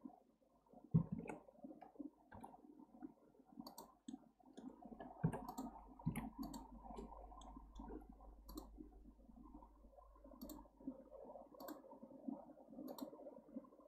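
Irregular computer mouse clicks and keyboard key presses, a scattered handful every few seconds.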